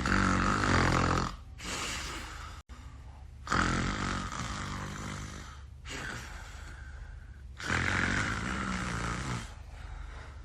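A man snoring in his sleep: three loud, rough snores about four seconds apart, each followed by a quieter breath out.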